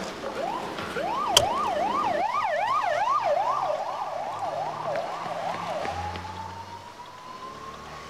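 Police car siren in a fast yelp, rising and falling about two and a half times a second, then switching to a slow rising wail near the end. A sharp click about a second and a half in.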